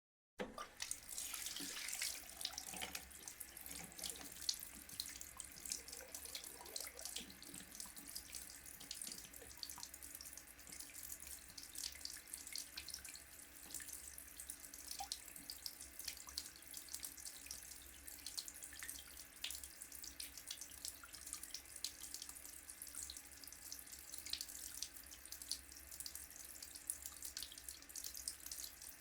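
Water running from a tap into a sink, a steady splashing stream with fine crackle that starts a moment in.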